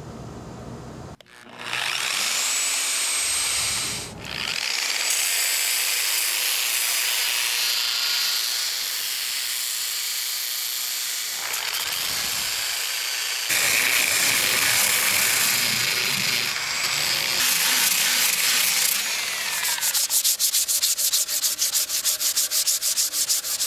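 Power sander running on a wooden surfboard, a steady hiss of the abrasive pad on wood. About 20 seconds in it gives way to hand sanding: quick back-and-forth strokes of sandpaper on the wooden rail, about five a second.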